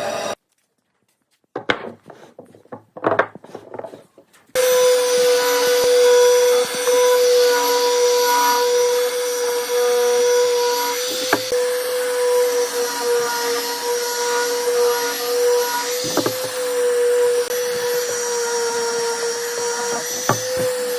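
A few scraping, rasping strokes on wood, then an electric power tool starts about four seconds in and runs at a steady whine.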